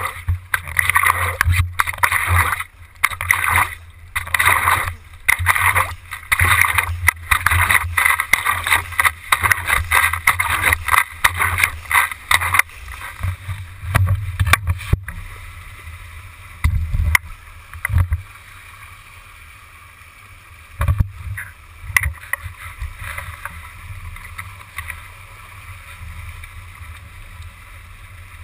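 Water rushing and splashing around a stand-up paddle and race board, heard from a camera on the paddle shaft. For the first dozen seconds it surges and drops away about once a second with the paddle strokes, then settles to a quieter steady rush broken by a few splashes.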